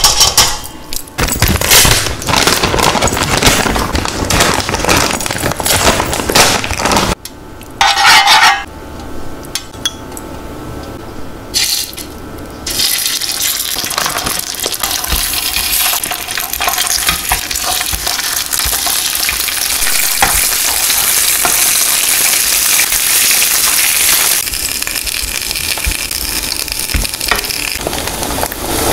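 Cheese-filled glutinous rice buns frying in oil on an electric grill plate, a steady sizzle that sets in a little under halfway through and keeps on. Before it, a run of taps and knocks from handling on the grill plate.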